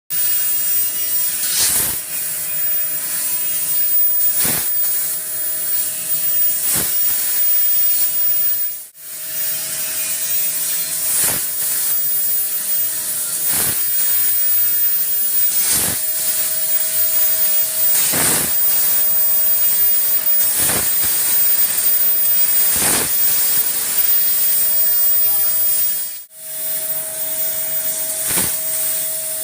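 A 3 kW fiber laser cutter cutting 2 mm metal plate: a loud, steady hiss of the gas jet at the cutting head, with a short sharp burst about every two seconds and a faint steady tone that comes and goes. The hiss drops out briefly twice.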